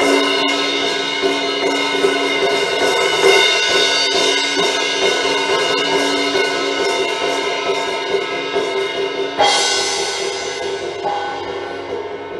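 Instrumental worship music of sustained held chords, with a cymbal crash about nine seconds in; the music grows gradually softer toward the end.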